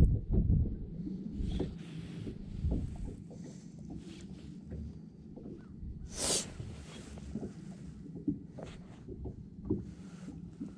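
Low rumble of wind on the microphone aboard a small boat, louder for the first second, with small knocks and rustles as the jacket sleeve and fishing rod are handled; a short, loud hiss about six seconds in.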